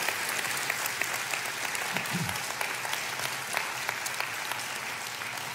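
Audience applauding, a steady patter of many hands clapping that slowly dies down toward the end.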